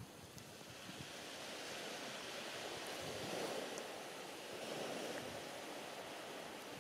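Sea surf washing on the shore, swelling to a peak about halfway through and easing off, with wind behind it.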